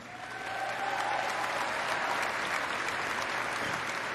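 Large audience applauding, building up over the first second and then holding steady.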